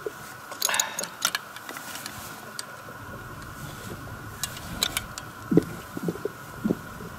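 Steel spanners clinking and clicking on the bolt and steel shaft of an ice auger while its drill adapter is tightened: a few irregular sharp metallic clicks in the first half and again past the middle. Several short, duller knocks follow near the end.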